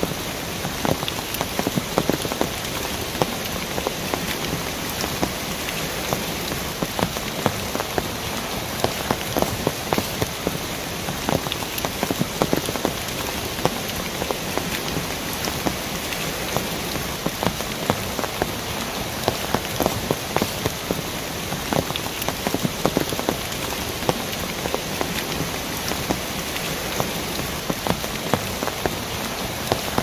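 Mountain stream cascading: a steady rush of water over rocks with many small splashes and drips.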